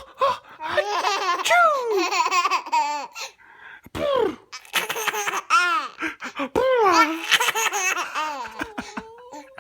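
An eight-month-old baby laughing hard in three long bouts, each a run of quick, high-pitched laughs with short breaths between.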